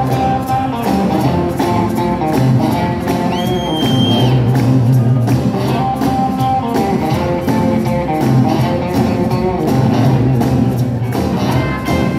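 Live band playing an instrumental jump-blues/rockabilly passage: electric guitar over a swinging rhythm of upright bass, drums and piano.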